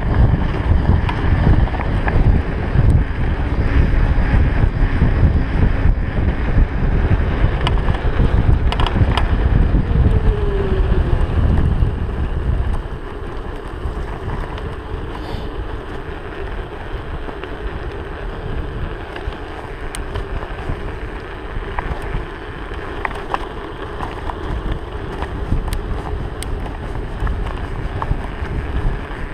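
Wind buffeting an action camera's microphone while a mountain bike rolls downhill on a paved road, with tyre rumble and small rattles from the bike. The low rushing drops noticeably about 13 seconds in.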